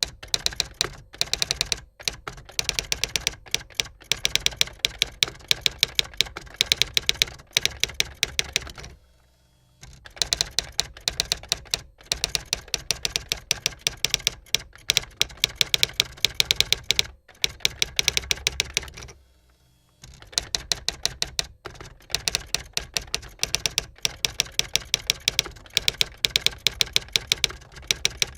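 Rapid typing: a dense stream of key clicks, many per second, broken by two short pauses, about a third and two thirds of the way through.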